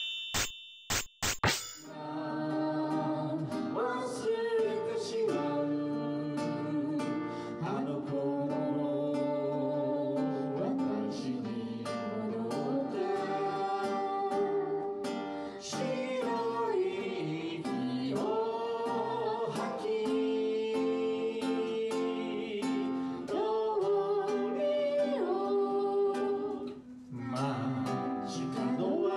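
Background music: a song with a voice over plucked guitar, starting about two seconds in after a few short pops.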